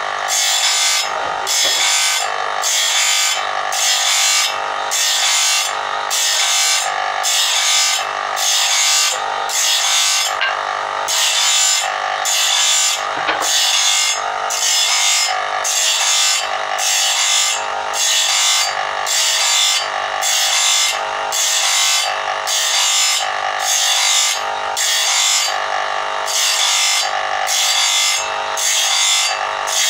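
Electric motor-driven grinding wheel sharpening the teeth of a long sawmill saw blade: the steel grinds against the wheel in a regular rhythm of about one tooth a second over the motor's steady hum.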